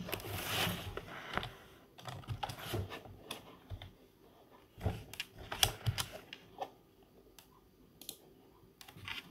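Computer keyboard typing and mouse clicks: irregular, uneven taps, a few close together, with a rougher rustling stretch in the first second.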